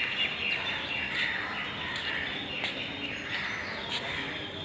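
Small birds chirping busily, many short overlapping chirps, with a few sharp clicks scattered through.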